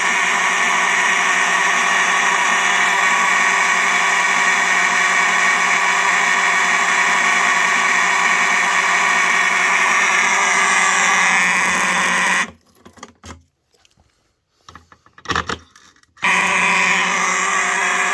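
Simplex mechanical fire alarm horns sounding a loud, steady, low buzz. About twelve and a half seconds in they cut out, give two brief bursts, and come back on about sixteen seconds in.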